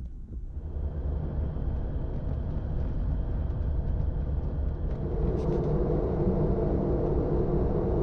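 Jeep Gladiator driving along a paved road: steady low engine and road rumble that grows louder over the first second or so, with a steadier hum joining about five seconds in.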